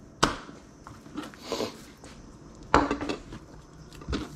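Knocks and clatter on a cutting board as fish pieces and a fillet knife are handled and set down: a sharp knock right away, a louder one a little before three seconds in and another near the end, with softer handling noise between.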